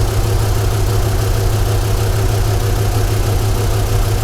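1995 Ford F-150 engine idling steadily. It is running with a misfire: cylinder 1's injector shows no control pulse from the PCM, which the mechanic puts down to a wiring fault or the computer.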